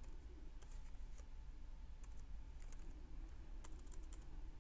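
Keystrokes on a computer keyboard: scattered light clicks as a file name is typed, with a cluster of quicker strokes near the end. A faint steady low hum lies underneath.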